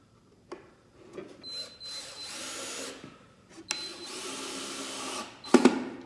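Cordless drill driving a drywall screw into a pine board through a pre-drilled hole, running in two spurts of about a second and a half each. A couple of sharp knocks follow near the end.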